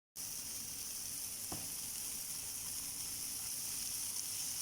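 Rice with onion, tomato and green chilli frying in a pan, a steady sizzle, with one light tap about a second and a half in.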